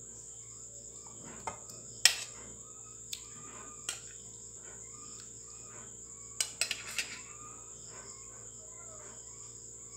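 Crickets chirring steadily in the background, with a few sharp clicks and clinks over it: the loudest about two seconds in, and a quick cluster around six to seven seconds in.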